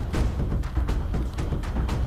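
Dramatic background music with deep, timpani-like drum hits over a steady low rumble.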